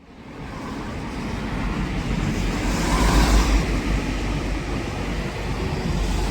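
Street traffic noise: a low rumble and tyre-and-engine hiss from road vehicles, swelling as a vehicle passes close about three seconds in.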